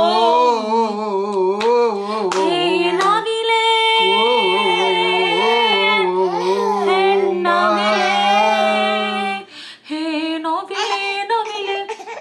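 A woman singing a tune with long held, wavering notes and no clear words, breaking off about nine and a half seconds in, then shorter sung phrases.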